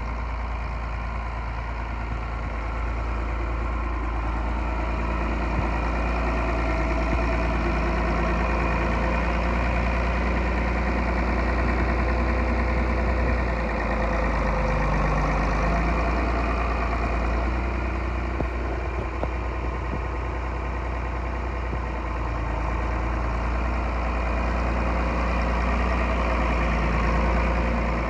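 John Deere 4010's six-cylinder diesel engine running steadily at a low, even speed.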